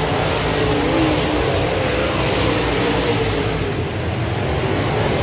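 A pack of dirt modified race cars racing around a dirt oval, a loud, continuous engine din whose pitches rise and fall as the cars go through the turns and down the straights.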